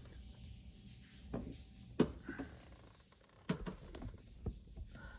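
A few light knocks and clicks from handling a steering wheel and its hub parts, the sharpest about two seconds in, over a low hum.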